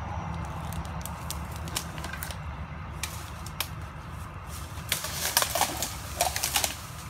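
Rustling and crackling as a person moves through brush around a wrapped log, with scattered clicks that come thick and fast about five to seven seconds in, over a steady low rumble.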